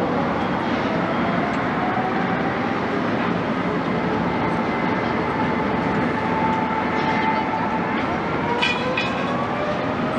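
Boeing 787-9 jet engines running across the airfield: a steady rumble with a high whine that rises slowly in pitch.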